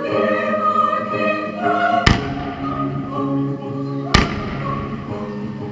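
Two firework bangs about two seconds apart, each trailing off briefly, over music with singing.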